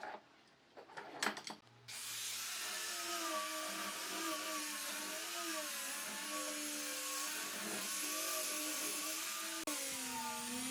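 A few light knocks, then about two seconds in an electric power tool starts running, its motor whine wavering up and down in pitch over a steady hiss, with a brief break near the end.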